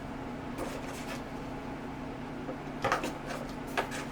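Packaging being handled as a desoldering iron is unboxed: a few light clicks and knocks, a quick cluster about three seconds in and another near the end, over a steady low hum.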